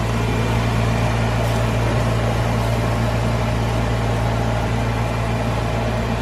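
Kitchen exhaust fan running with a steady low hum and an even hiss.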